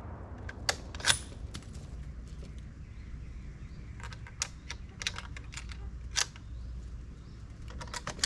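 Bolt of a Remington 03A3 bolt-action 30-06 rifle being worked after a shot: a string of short, sharp metallic clicks and clacks, the loudest about a second in.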